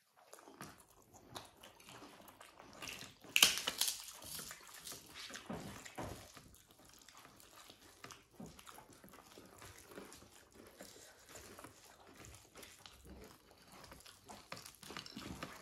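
Eating sounds from hot khichdi eaten by hand: small wet, sticky clicks of chewing and fingers working the food, with one sharper, louder crackle about three and a half seconds in.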